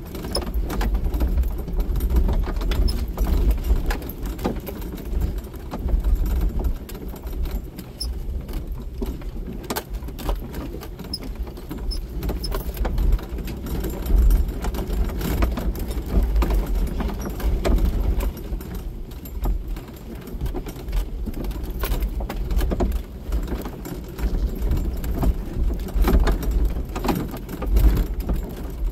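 Jeep Wrangler driving slowly over a rocky dirt trail: a steady low rumble from the engine and tyres on loose stones, with frequent short clicks, knocks and jangling rattles as the vehicle bounces.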